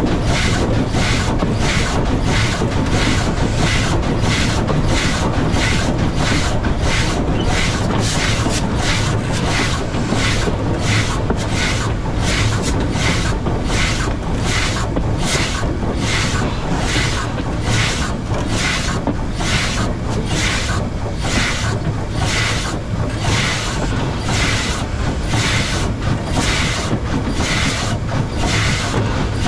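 W class steam locomotive working upgrade, its exhaust chuffing in even rasping beats about twice a second over a steady low rumble of the running gear on the rails.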